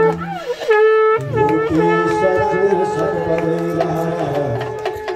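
A reedy wind instrument plays a melody with gliding pitch bends over a steady low sustained note.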